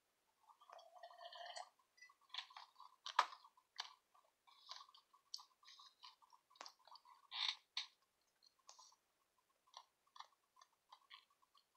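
Faint sounds of drinking from a glass mug, followed by scattered light clicks and taps.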